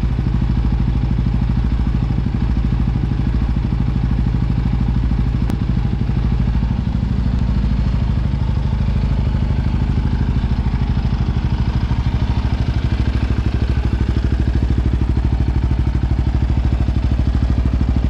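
An engine running steadily at a constant speed, its low note growing a little stronger partway through.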